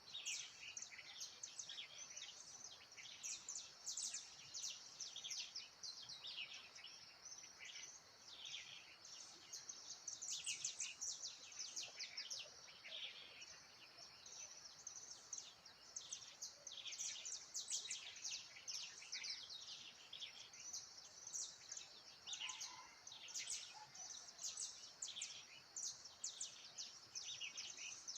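Many birds chirping and calling at once, a dense, continuous chorus of quick high chirps, over a faint steady high-pitched whine.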